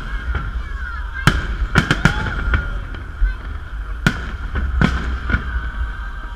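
Festive fireworks salute bursting: a string of sharp bangs, several in quick succession about two seconds in, then single ones spaced a second or so apart.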